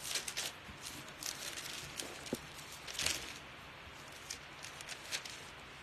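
Pages of a Bible being turned by hand: a run of short, irregular paper rustles and flicks, loudest about three seconds in, with a couple of lighter ones near the end.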